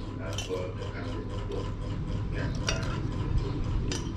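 Metal spoons scraping and clicking against plates and bowls while children eat, over a steady low hum.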